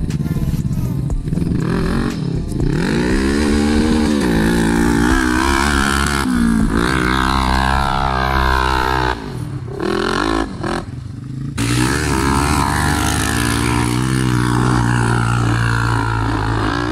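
Quad (ATV) engine revving hard under load as it climbs a steep sand slope, its pitch rising and falling with the throttle. The engine briefly cuts back a few times about nine to eleven seconds in.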